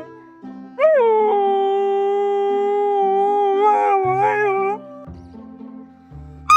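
A dog's long howl: it starts about a second in, rises briefly, then holds one pitch for about four seconds, wavering before it stops. Background music with a plodding bass line plays under it.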